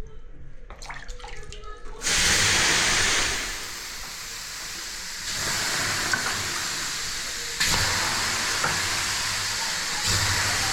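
Water ladled onto hot sauna stones, hissing loudly into steam. Four splashes in turn, the first about two seconds in, each a sudden hiss that eases off before the next.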